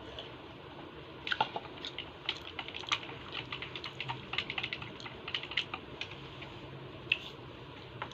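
Light, irregular clicks and taps of eating and handling food at a table, starting about a second in and thinning out near the end.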